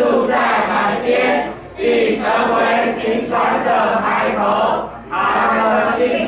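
A group of children and adults reciting Bible verses loudly in unison, in phrases broken by brief pauses about two seconds in and about five seconds in.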